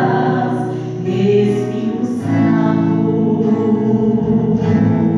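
A woman singing a slow gospel song into a microphone, holding long notes, with an acoustic guitar accompanying her.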